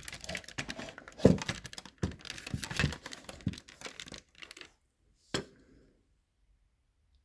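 Handling noise as the camera is moved down close to the lock: a quick run of clicks and rustles for about five seconds, then a single knock, after which it goes quiet.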